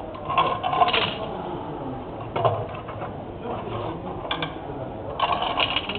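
Clicking and rattling of a small mechanism, in several short clusters: one about a second in, single ones in the middle, and a longer run near the end.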